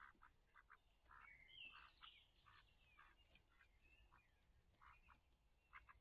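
Faint wildlife calls: short, quack-like calls repeating irregularly, with a few whistled bird glides about two seconds in.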